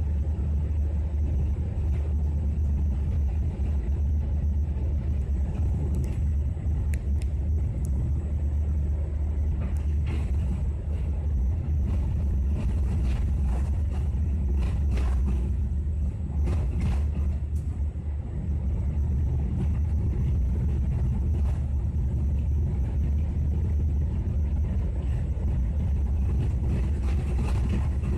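Passenger train rolling slowly out of a station, heard from the rear of the last carriage: a steady low rumble, with a run of clicks and knocks from the wheels over rail joints and crossings in the middle.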